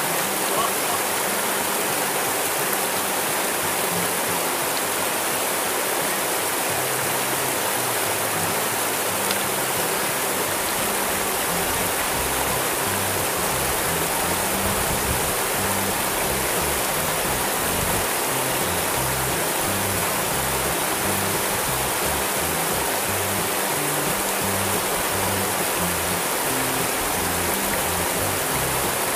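Shallow mountain river rushing over a low line of rocks in a small cascade, a steady, even rush of water. Background music sits underneath, its low bass notes stronger from about a third of the way in.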